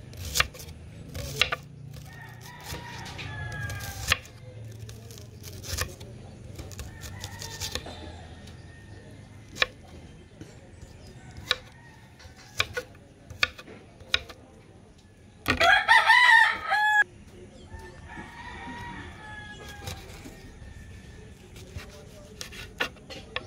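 Kitchen knife slicing through a red onion and then a chili on a wooden board, with sharp, irregular taps of the blade against the board. About two-thirds of the way in, a rooster crows once, loudly, for about a second and a half, the loudest sound here.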